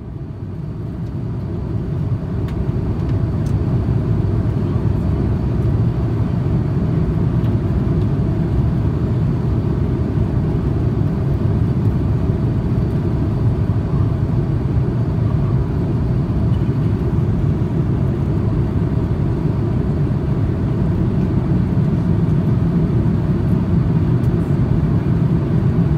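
Steady in-flight cabin noise of an Airbus A340-300 in cruise, a deep even rumble of airflow and its four CFM56 engines, fading in over the first couple of seconds and then holding level.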